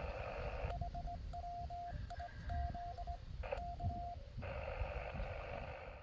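Morse code sidetone from a portable HF transceiver, a single beep of about 700 Hz keyed by hand in dots and dashes, sending "HW? K" to hand the contact back to the other station. The receiver's band hiss cuts out while it transmits and comes back about four seconds in. Wind rumble on the microphone throughout.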